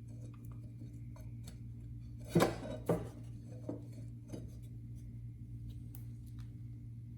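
Metal parts and hand tools clinking and clicking a few times while a lawn mower blade and its bolt are fitted, the loudest two clinks about half a second apart in the middle, over a steady low hum.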